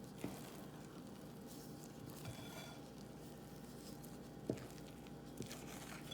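Quiet kitchen handling sounds: a few soft knocks and squishy movements, as of a utensil working thick muffin batter in a bowl, over a faint steady hum.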